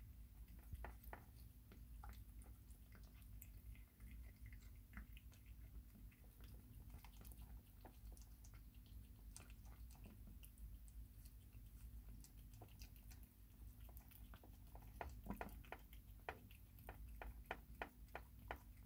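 Kitten chewing wet cat food from a plastic bowl: faint, wet smacking clicks, scattered at first and coming quicker, about four a second, near the end.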